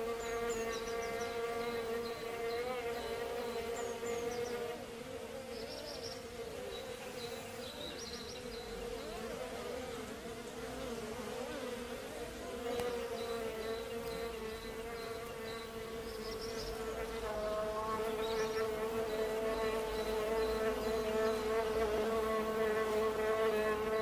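Bees buzzing: a steady droning hum with several slightly wavering pitches overlapping. It grows louder in the second half.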